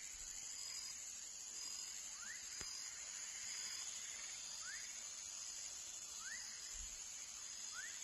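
Young frog calling with short rising chirps, four of them spaced about two seconds apart, over a steady high-pitched insect chorus with a faint regular ticking.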